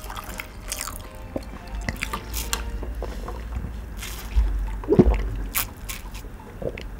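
Drink being sipped through a plastic straw from a paper cup: wet sucking and swallowing sounds, with a louder gulp about five seconds in.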